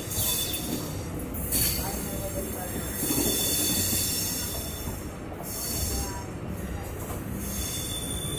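Chennai EMU suburban electric train running along the track, heard from an open doorway of the coach: a steady rumble of wheels on rails with stretches of louder high-pitched hiss about one and a half and three seconds in.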